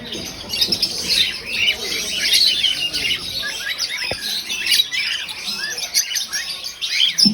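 Many small caged birds chirping and calling over one another in a dense, steady chatter of short high chirps.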